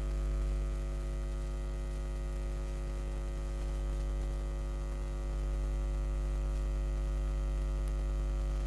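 Steady low electrical mains hum, with a faint buzz over it, unchanging throughout.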